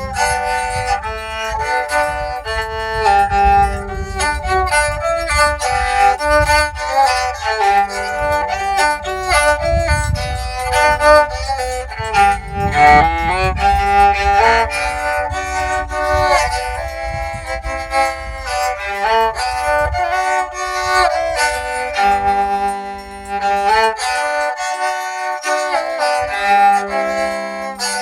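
Rabeca, a handmade Brazilian folk fiddle, bowed in a quick folk melody with frequent note changes and a lower note held now and then underneath.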